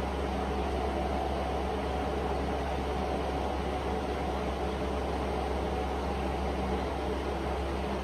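Steady hum with an even hiss over it, unchanging throughout, like a running machine such as a fan.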